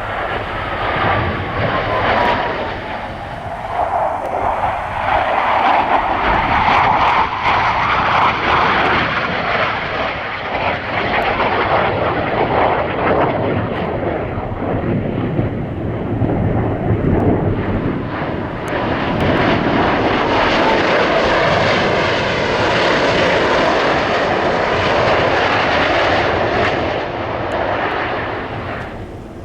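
Loud aircraft engine noise that swells and fades twice, with a faint falling whine in the first few seconds, then cuts off abruptly at the end.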